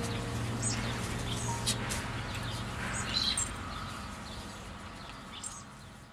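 Small birds chirping in short, scattered calls over a low held note of background music, all fading out toward the end.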